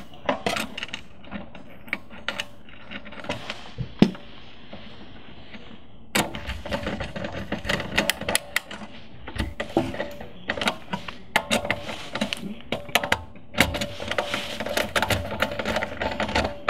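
Screwdriver tightening the screws of a barrier-type screw terminal block on a CCTV power distribution board, clamping bare wire leads: irregular clicks and scraping of metal on metal, with handling of the wires. The clicking gets denser from about six seconds in.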